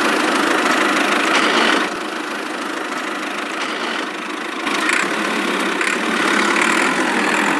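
Steady engine-like running of a working toy excavator: a continuous mechanical drone, louder for the first two seconds, quieter for a while, then louder again from about five seconds in.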